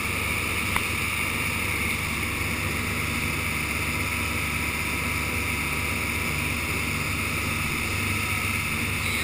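Motor of a wooden pilot boat running steadily under way, a low even drone under the continuous rush of its wake and water along the hull, with a single short click about a second in.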